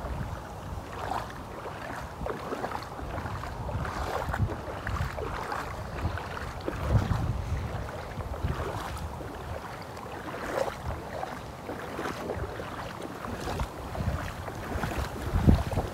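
Footsteps wading through shallow flood water, sloshing and splashing irregularly, with wind rumbling on the microphone.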